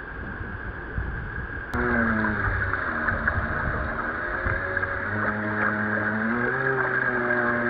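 Water sloshing and wind on the deck of a 1-metre class RC sailboat. Under a click about two seconds in, a steady pitched hum with several overtones sets in. It dips in pitch once, then holds.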